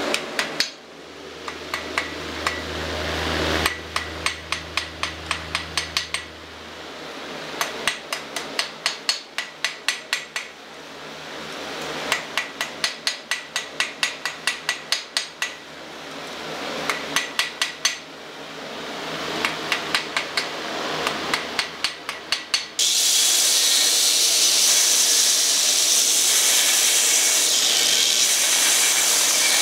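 Hand hammer striking hot steel bar stock on an anvil, forging the blank for a small fork fire striker. The strikes come in five quick runs of about three to four a second, with a steadier noise between runs. About 23 seconds in, a steady loud machine noise from a power tool takes over.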